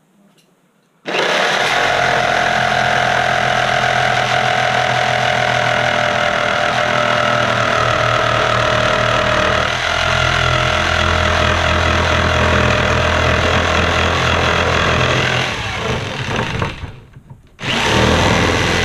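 Electric jigsaw sawing through a wooden 2x4, its motor starting about a second in and running with a steady whine over the blade's rasp. It stops briefly near the end and then starts again.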